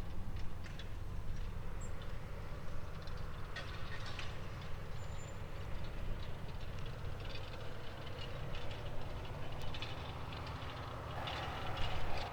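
Fendt 936 tractor's diesel engine running steadily under load while ploughing, a low rumble with scattered light clicks and rattles over it. The sound grows louder and noisier just before the end, then drops off suddenly.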